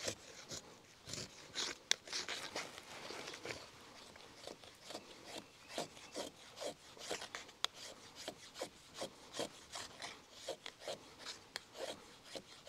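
Beavercraft AX1 short-handled hatchet shaving curls down a dry stick braced upright against a log, as when making a feather stick. The steel blade makes quick scraping strokes on the wood, about two a second, with two sharp ticks along the way.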